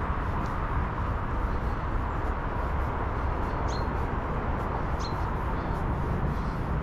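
Steady outdoor background noise with a low rumble, and a few short, high bird chirps, the clearest about three and a half and five seconds in.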